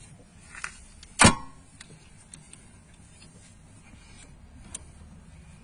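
Hand tools knocking against the rear brake caliper: one sharp metallic clank with a brief ring a little over a second in, and a few lighter clicks and taps.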